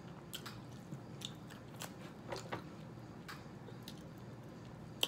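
Faint, close-miked mouth sounds of a person chewing food: scattered soft clicks and smacks, about a dozen over a few seconds.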